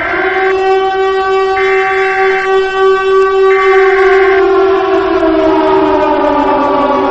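Civil defense warning siren sounding a steady, multi-tone wail, with a higher tone switching on and off about once a second for the first four seconds; after that, some of its tones slowly slide lower.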